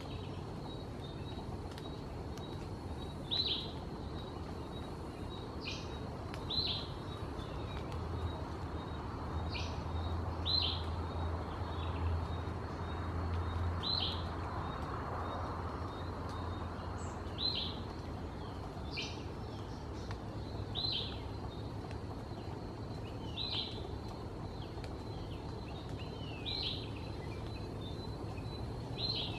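A bird repeating a short, sharp, high call about every three seconds over a steady background hiss, with a faint low hum in the middle stretch.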